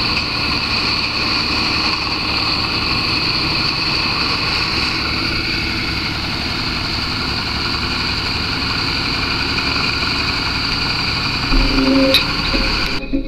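Bandit Beast 3680 horizontal grinder running steadily under load, its diesel engine and grinding rotor chewing logs into wood chips, with a steady high whine over a low rumble. The sound changes near the end and breaks off suddenly.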